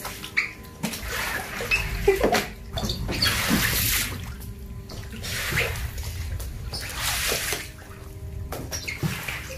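Rubber floor wipers pushing rainwater across a tiled floor: repeated wet swishing strokes, each about a second or two long.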